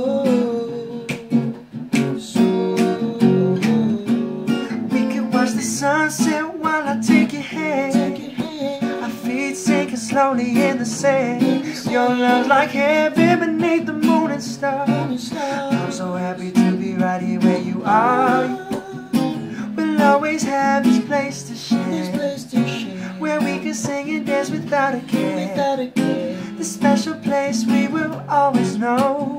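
Acoustic guitar strummed in a steady rhythm with a voice singing the melody over it.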